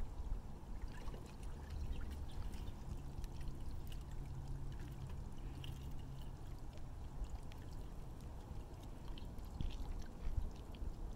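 Water pouring and trickling steadily in a bass boat's live well, with a low rumble underneath and a faint low hum for a few seconds in the middle.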